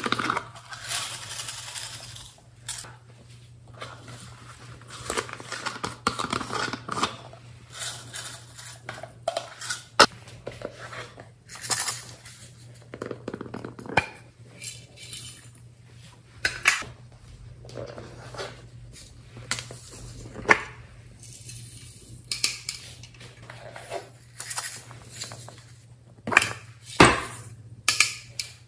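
Hands handling hard plastic slime containers and cases over a glass dish: a string of sharp clicks and clacks of plastic, with short rustling and scraping in between. A faint steady low hum runs underneath.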